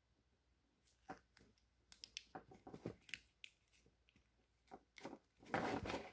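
Faint scattered clicks and rustles of a car wiring harness in plastic split loom being handled on a bench, the wires and loom shifting in the hands, with a louder rustle near the end.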